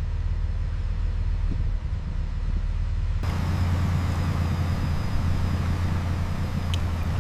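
Steady low engine drone. About three seconds in, the sound changes abruptly as a brighter hiss joins, and a couple of faint clicks come near the end.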